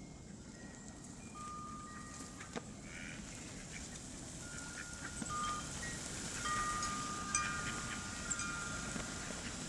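Chime-like ringing at several pitches, the tones starting one after another and overlapping, growing busier in the second half, over a steady low background noise.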